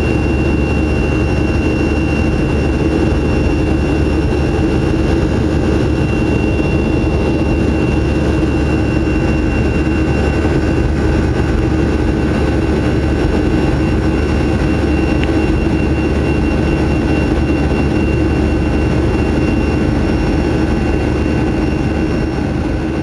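Boeing 737-300's CFM56 turbofan engines running steadily, heard inside the passenger cabin: a deep rumble and rush of air with a steady high whine over it.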